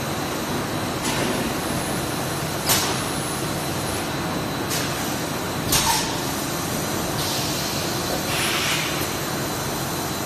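JWZ-BM 12D extrusion blow molding machine running with a steady mechanical noise, broken by short sharp pneumatic hisses every second or two, the loudest about three and six seconds in, and a longer hiss of air from about seven to nine seconds in.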